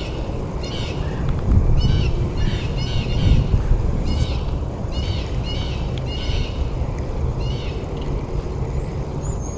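Birds chirping, short calls repeated about every half second to a second, over a steady low rumble.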